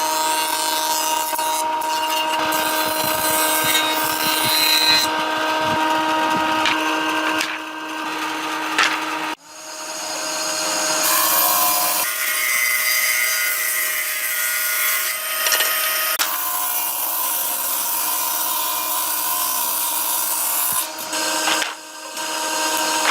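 Electric power tools running on wood, a steady motor whine under the rasp of cutting or sanding. The sound shifts abruptly several times, dropping out sharply about nine seconds in.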